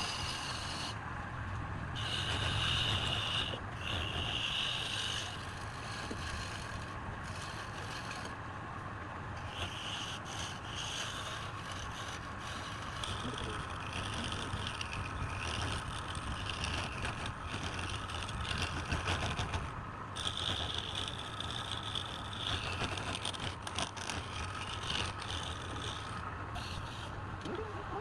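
Wood lathe running with a steady low hum, while a turning tool cuts the spinning wood in spells of a few seconds, giving a hissing scrape that starts and stops.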